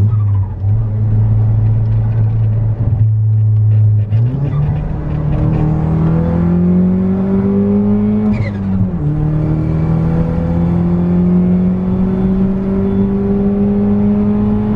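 Stage 3-tuned Peugeot 208 GT's turbocharged 1.6 four-cylinder heard from inside the cabin, running steadily, then pulling hard with a rising engine note. About two thirds of the way in the revs drop at a gear change with a short falling whistle, then climb again, and they drop once more right at the end.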